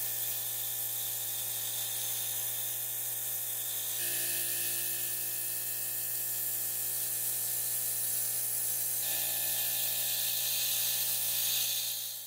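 Steady hiss of compressed air spraying, with a steady low hum underneath; the sound changes abruptly about four seconds in and again about nine seconds in.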